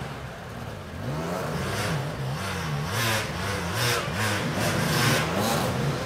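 Enduro motorcycle engine revving up and down again and again, about twice a second, with a hiss on each peak of throttle.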